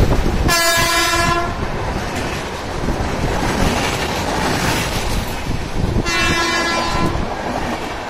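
WAP4 electric locomotive's horn sounding two blasts of about a second each, one near the start and another about six seconds in. Underneath, the steady rumble and clatter of passenger coaches rolling past at speed.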